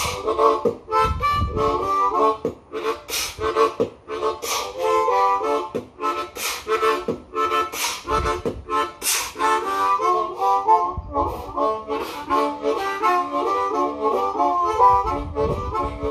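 Harmonica played in a quick, rhythmic riff of stepping notes and chords, with sharp breathy beatbox-style hits about every second and a half through the first part.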